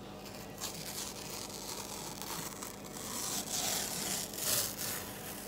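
Cardboard tear strip being ripped along the edge of a shipping box, a dry tearing noise in short pulls that grows loudest about three and a half to five seconds in.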